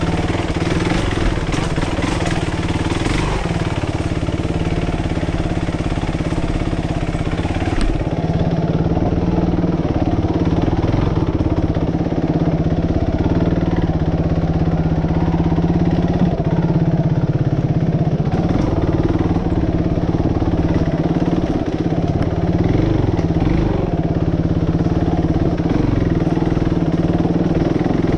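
Suzuki RMX450Z dirt bike's single-cylinder four-stroke engine running under the rider, mostly steady, with small rises and falls in pitch as the throttle is worked.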